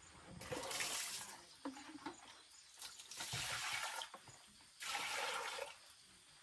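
Water splashing in three separate bursts, each about a second long.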